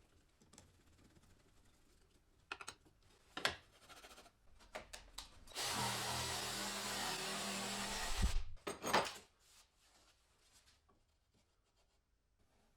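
A small electric power tool runs steadily for about two and a half seconds, starting around the middle and stopping sharply. Knocks and clatter from handling the tool and workpiece come before and just after it.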